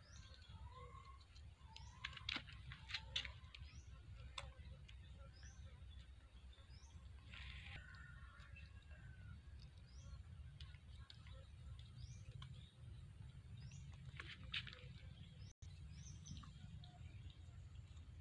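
Faint bird chirping: short high notes repeated every second or so over a low steady rumble of background noise, with a few faint taps.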